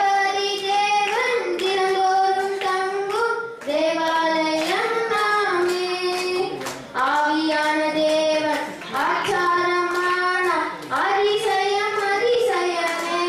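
Children singing a song, with hand claps.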